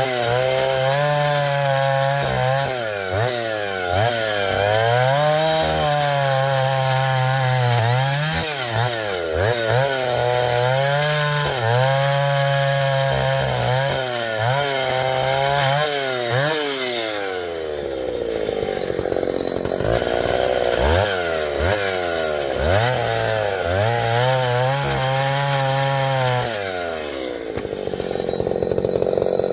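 Vintage Husqvarna L65 two-stroke chainsaw cutting ash firewood, its engine revving up, holding and dipping again and again as the chain bites, settling to a lower run about seventeen seconds in and again near the end.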